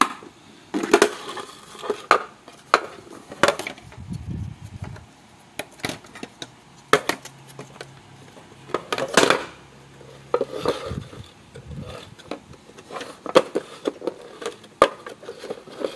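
Hard plastic clicks, knocks and rattles as a Shark ION robot vacuum's dustbin is unlatched and pulled out of the robot: a string of separate sharp clicks at uneven intervals.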